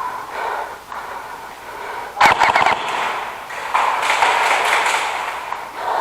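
Airsoft gun firing a short full-auto burst about two seconds in: a quick run of sharp clicks lasting about half a second.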